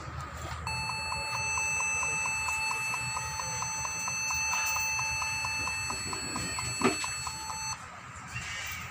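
Dell Inspiron 1564 laptop giving its hard-disk error warning: one steady, high electronic beep held for about seven seconds as the machine starts up. A sharp click sounds near the end of the tone.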